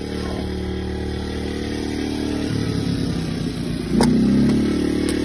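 Excavator engine running steadily, then picking up in pitch and loudness about four seconds in. A sharp knock comes at the same moment, and a fainter one near the end.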